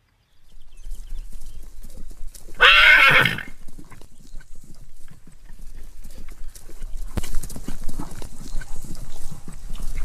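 A horse gives one short neigh, under a second long, about three seconds in. Around it run a steady patter of quick knocks and rustles that grow louder in the last few seconds.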